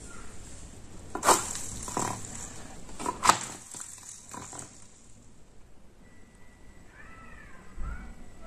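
A few sharp knocks of a metal-cased compass being batted about on a wooden floor by a white Persian kitten, the two loudest about two seconds apart. Near the end, a few short, faint high mews from the kitten.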